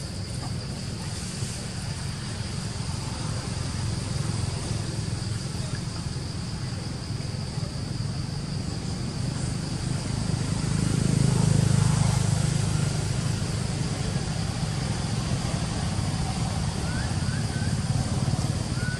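Outdoor ambience: a steady low rumble that swells about two-thirds of the way through, under a steady high insect drone, with a few short high chirps near the end.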